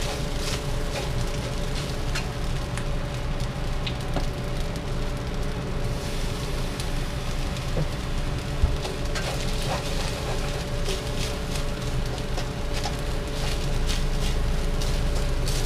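Cooked rice sizzling and crackling as it toasts in a hot, oiled wok, stirred with a wooden spatula that scrapes and taps the pan, with one sharper knock a little past the middle.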